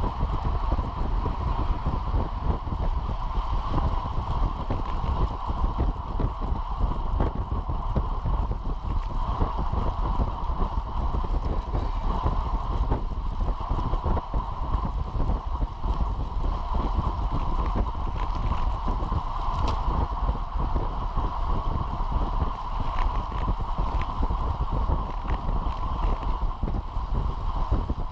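Steady wind rush and road rumble on the microphone of a bicycle-mounted action camera, riding at about 28 mph. A few faint clicks come in the second half.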